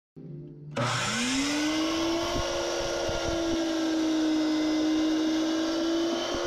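Electric miter saw switched on about a second in. Its motor whine rises quickly to a steady pitch, then runs steadily as the blade is brought down through a stack of boards.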